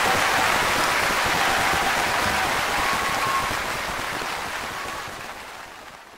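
Audience applause at the end of a live concert track, fading out over the last few seconds.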